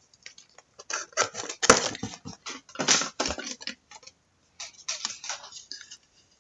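Trading card and plastic card holders being handled, with irregular rustling and scraping and small clicks of plastic.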